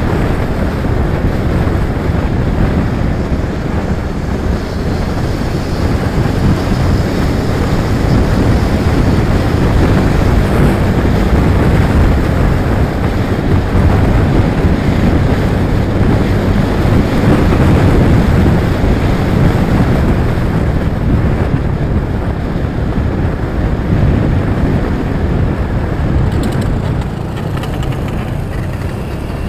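Wind rushing over the microphone of a moving scooter: a steady, loud low rumble of wind and road noise.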